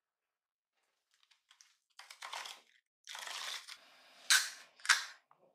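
Cardboard six-pack carton of beer cans being torn open and a can pulled out. First comes crinkling and a second-long tearing rip, then two sharp loud snaps about half a second apart.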